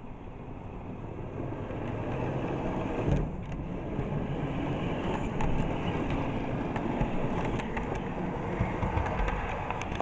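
A motor vehicle running, a steady rumble of engine and road noise that grows louder over the first two seconds, with a single knock about three seconds in.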